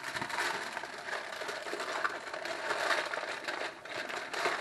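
Aluminium foil crinkling and crackling as it is folded and squeezed shut by hand to seal a foil cooking packet, with a somewhat louder crackle near the end.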